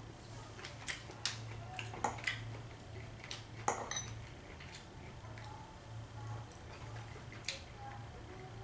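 Cutlery clinking on tableware during a meal: a spoon and fork knocking against a soup bowl and plate in scattered sharp clinks, the loudest a little under four seconds in, over a low steady hum.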